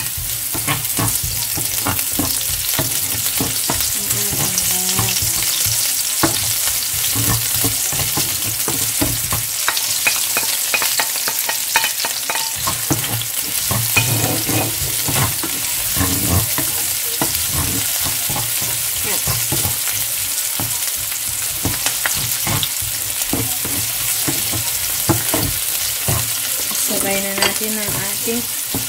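Chopped onion and minced garlic sautéing in a nonstick frying pan: a steady sizzle, with frequent small clicks and scrapes as a wooden spatula stirs them around the pan.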